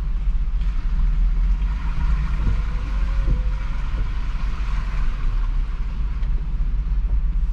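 Cargo van driving slowly, heard from inside the cab: a steady low engine and road rumble.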